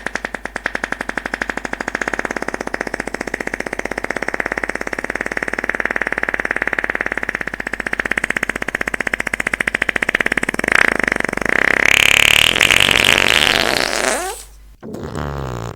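Fart sound effect: one very long buzzing fart made of a rapid flutter, growing higher and louder for its last few seconds. After a brief break near the end comes a short second fart.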